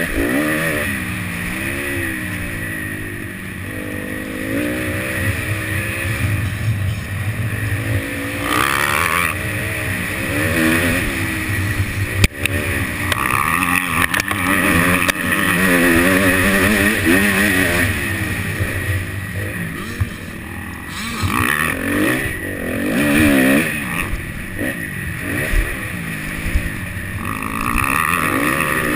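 Motocross bike engine revving up and falling back again and again as the rider accelerates and shifts gears around the track. There is one sharp knock about twelve seconds in.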